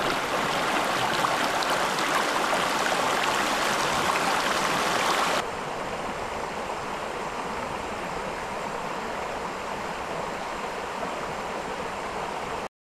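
River water flowing in a steady rush. It drops abruptly to a quieter level about five seconds in, and cuts off sharply just before the end.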